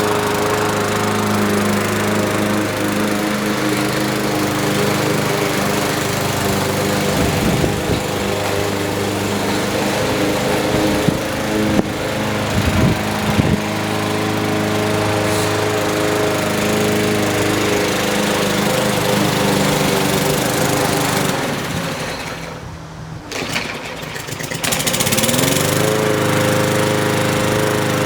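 Craftsman M210 self-propelled push mower's small engine running steadily, with a few knocks along the way. About 22 seconds in the sound drops briefly, then the engine pitch rises back up.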